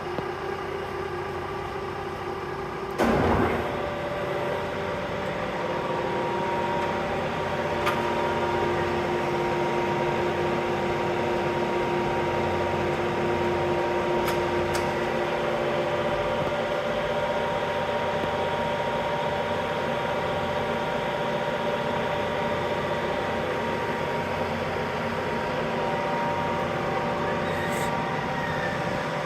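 Kearney & Trecker milling machine running steadily, a motor and gear hum with several steady tones, with one loud clunk about three seconds in.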